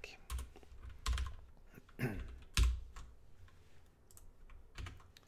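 Typing on a computer keyboard: scattered, irregular keystrokes.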